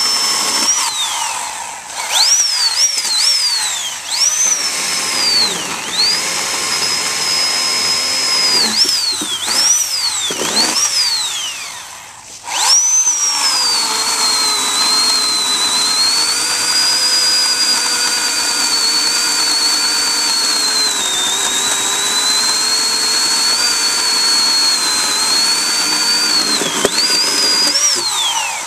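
Oregon PowerNow 40-volt battery chainsaw cutting a fallen log. The electric motor's high whine dips in pitch as the chain bites and winds down each time the trigger is released. It comes as a string of short bursts at first, then one long, steady cut that stops near the end.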